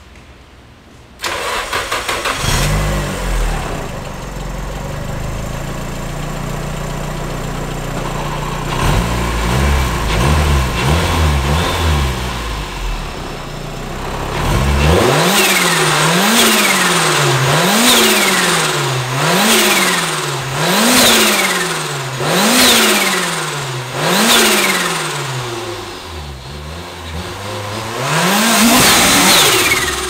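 Nissan S14's turbocharged SR20DET four-cylinder is cranked and starts about a second in, then idles. It is revved in repeated throttle blips, about one every second and a half, with a longer rev near the end. Each time the throttle snaps shut, the turbo blow-off valve lets out a falling whistling hiss.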